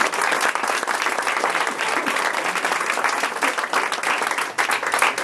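A small audience applauding, many hands clapping at once.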